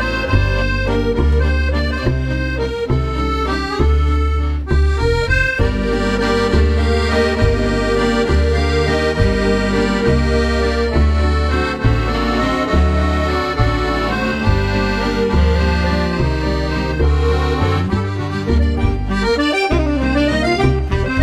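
Background music with a steady, pulsing bass beat and a melody above it.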